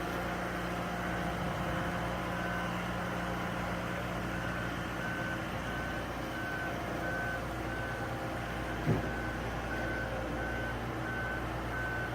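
A boatyard travel lift carrying a sailboat in its slings: its engine runs steadily, and from about four seconds in its motion warning alarm beeps evenly, a little more than once a second. There is one short thump about nine seconds in.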